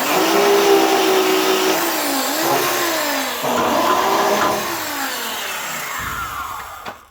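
Handheld electric grinder running on sheet steel. It starts abruptly, and its motor whine dips in pitch and recovers several times as it is pressed into the metal and eased off, then stops just before the end.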